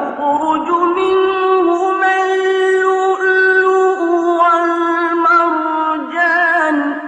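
A solo voice chanting Quranic recitation in long, drawn-out melodic notes, starting after a short pause and wavering on a held note near the end.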